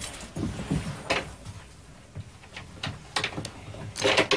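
Light metallic clicks and scrapes of a door lock being worked open by hand, with a busier run of clicks and rattling near the end.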